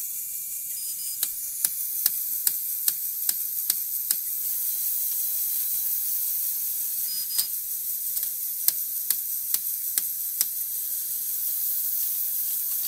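Motor-driven LEGO Technic loom mechanism running: sharp plastic clicks about two or three a second, in two runs of eight or so, over a steady faint hiss.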